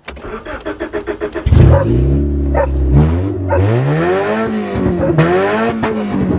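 Automatic Honda's engine cranking with a quick even ticking, catching about a second and a half in, then revved up and down several times.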